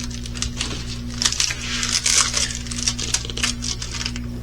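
Crinkly plastic packaging of a diamond-painting kit rustling and crackling as it is handled, in irregular bursts with small clicks.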